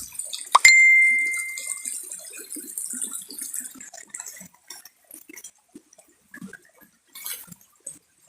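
A single sharp metallic ring, like a small bell struck once, about half a second in, dying away over a second or so. Behind it is a faint rush of flowing water that thins out about halfway through.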